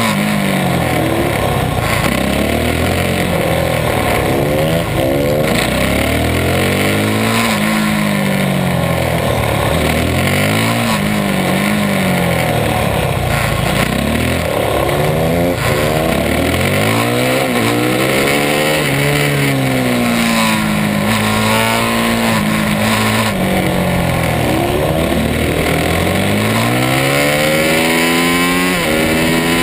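Onboard sound of a supermoto motorcycle engine under race conditions: the revs climb hard through the gears and drop away on the brakes for each corner, over and over.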